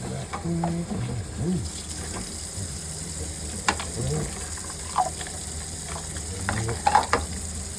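Tap water running into a sink during dishwashing, with a few sharp clinks of dishes about four, five and seven seconds in, over a steady low hum.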